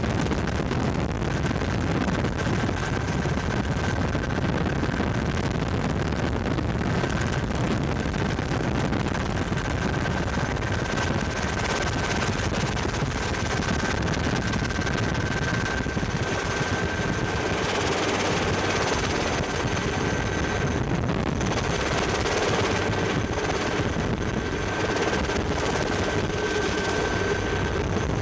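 Helicopter cabin noise in flight: the rotor and engine running steadily under rushing air, with a thin steady whine above it.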